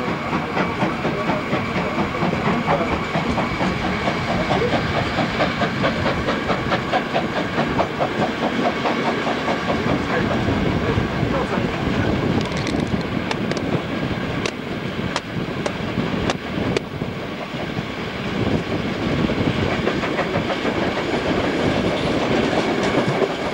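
Ride behind a steam locomotive, the BR 03 Pacific 03 2204, heard from a coach of its train: wheels clattering over the rails with a steady exhaust beat, and a run of sharp clicks about halfway.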